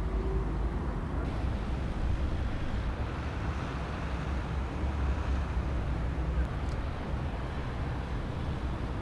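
Steady low rumble of outdoor city background noise, with no single event standing out.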